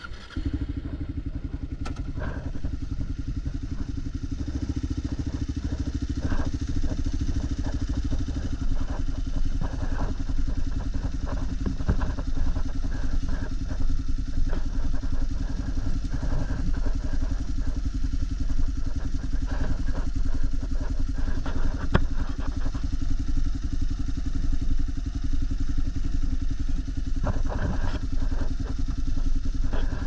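Motorcycle engine running steadily at low road speed on a dirt road, with scattered clicks and rattles over the rough surface.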